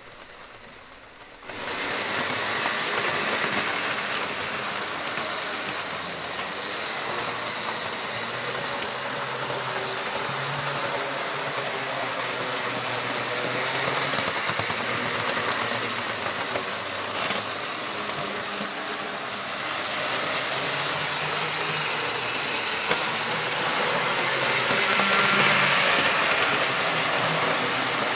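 Bachmann HO-scale model trains running around the track: a steady whir of the small electric motors and wheels on the rails, starting about a second and a half in and swelling louder near the end. One sharp click about two thirds of the way through.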